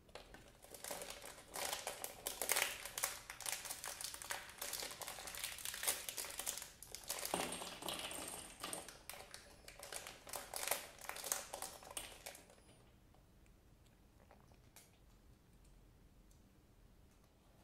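Packaging being handled: crinkling and rustling with many small clicks for about twelve seconds, then it stops, leaving faint room tone with a few soft clicks.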